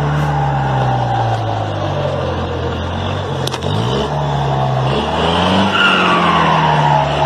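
A motor vehicle's engine revving up and down, its pitch rising sharply a few times and then falling away, with a higher whine that drops in pitch near the end.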